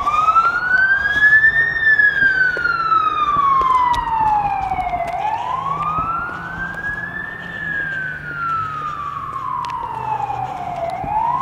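Emergency vehicle siren in a slow wail, its pitch rising over about two seconds and falling over about three, repeating twice with a third rise starting near the end.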